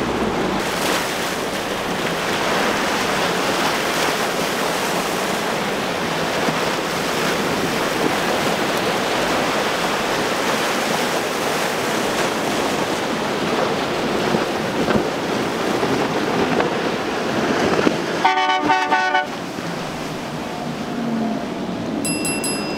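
Boats running fast through rough inlet water: a steady rush of spray, wind and outboard engines. About three-quarters of the way through, a loud horn blast lasts about a second.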